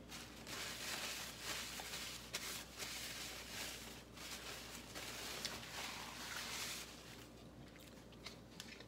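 Paper towel rustling and crumpling in the hands, with a few small crackles, stopping about seven seconds in.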